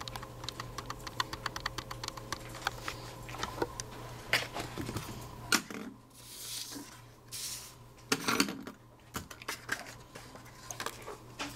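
Typing on a computer keyboard: quick, irregular keystroke clicks for the first five seconds or so, over a low steady hum. After that come a few louder rustles of paper being handled.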